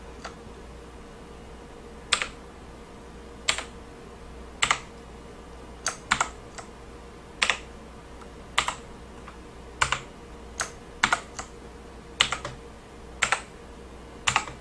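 Keys on a mechanical keyboard with clicky Kailh Blue switches pressed one at a time, roughly once a second: about a dozen sharp clicks, some heard as a quick double click.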